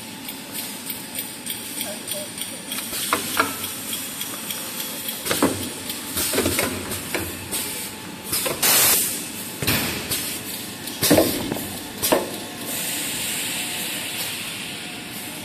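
Kitchen towel paper converting machine running: steady machine noise with irregular clacks and knocks, and short, loud bursts of air hiss from its pneumatic cylinders.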